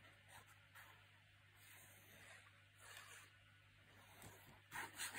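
Near silence, with faint soft rustles of card being handled while liquid glue is laid on it, and a slightly louder rustle near the end.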